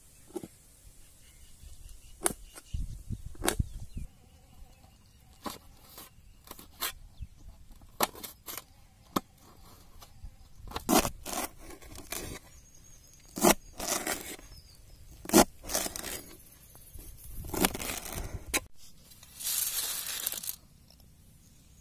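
Kitchen knife chopping green chillies on a steel plate: irregular sharp taps of the blade striking the metal, bunched closer together in the second half, with a short burst of scraping near the end.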